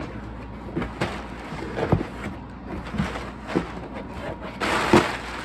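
A cardboard shipping box being opened by hand: scattered knocks and scrapes of the cardboard, then a louder rustle of plastic air-pillow packing being handled near the end.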